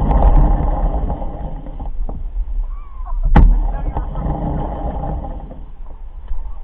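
Low rumbling noise with a single sharp knock about three and a half seconds in, fading somewhat towards the end.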